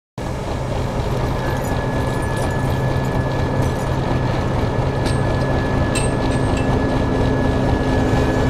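English Electric 1600 class diesel-electric locomotive running as it rolls slowly toward the listener, its engine drone growing gradually louder, with a thin steady whine over it.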